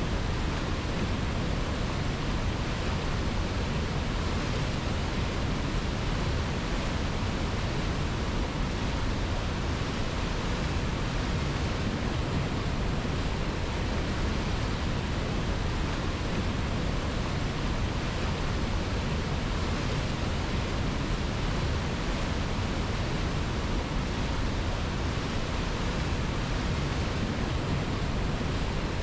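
Steady, even rushing of a river, with no splashes, breaks or changes in level.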